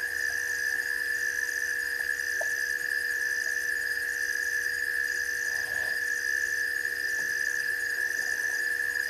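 Steady night chorus of insects at a waterhole: a continuous high-pitched drone, with a higher trill pulsing on and off about once a second on top.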